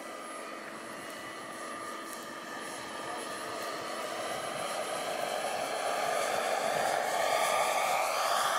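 Radio-controlled scale Huey model helicopter in flight, its rotor and motor making a steady whine that grows louder through the second half as it comes in low.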